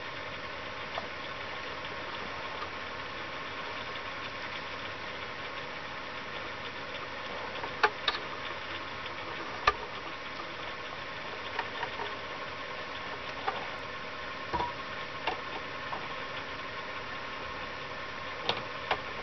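Scattered small clicks and taps of wire leads and metal parts being handled inside a wooden project box, over a steady background hum. The clicks are loudest about eight and ten seconds in.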